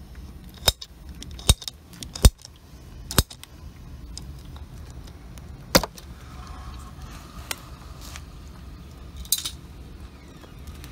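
Sharp metallic clicks and clinks of hand tools and parts being handled, irregularly spaced, the loudest about two seconds in, over a steady low hum.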